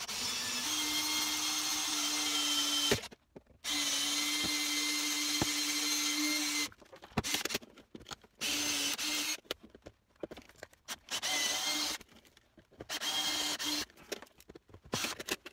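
Cordless drill drilling out rivets that hold a metal plate to a fiberglass boat seat base: two long runs of about three seconds each, then three short bursts, the motor's whine steady in pitch.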